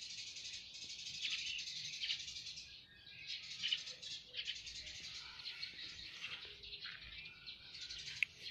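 Small birds chirping and twittering in a steady, busy chorus of high-pitched notes, thinning out briefly about three seconds in.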